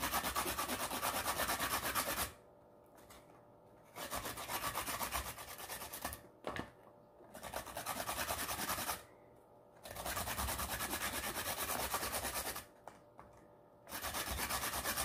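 Baby carrots grated by hand on a handheld flat grater: rapid scraping strokes in five or six bouts, with short pauses between them.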